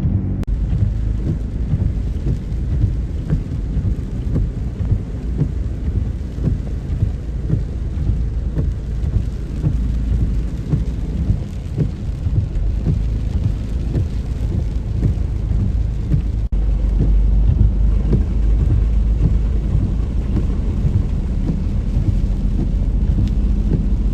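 Heavy rainstorm: dense rain with a constant low rumble. There is an abrupt cut about two-thirds of the way through, after which the low rumble is louder.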